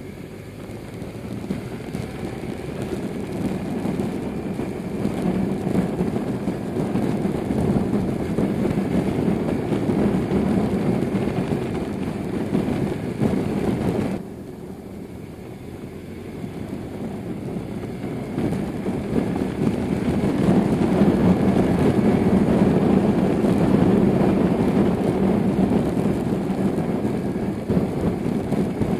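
Onboard sound of a BMW R1100RS under way: the flat-twin boxer engine running beneath a dense rush of wind over the microphone. The rush gets louder over the first few seconds, drops suddenly about halfway through, then builds again.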